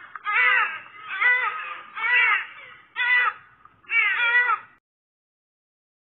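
Peacock calling: a series of five loud, short calls about a second apart that stop suddenly just before the last second and a half.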